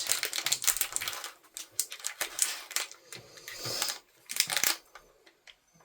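Toy packaging being handled and torn open: a run of small clicks, taps and rustles, busiest in the first second, then sparser sharp ticks.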